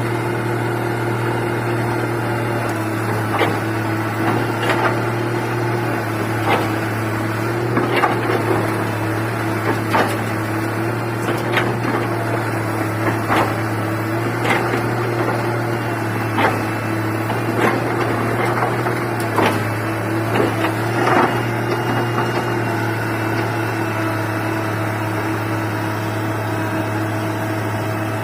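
Komatsu excavator's diesel engine running steadily, with sharp knocks and clanks every second or two through the middle part. A higher steady whine joins the engine note near the end.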